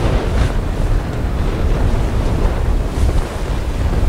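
Storm wind of around 40 knots buffeting the microphone over the rush of breaking seas, a steady heavy rumble.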